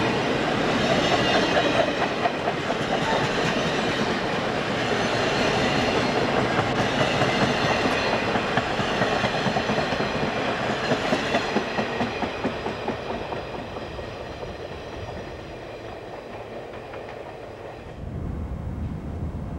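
Amtrak Superliner passenger cars rolling past, the wheels clickety-clacking over the rail joints, fading as the train moves away. Near the end the sound cuts suddenly to a low steady rumble.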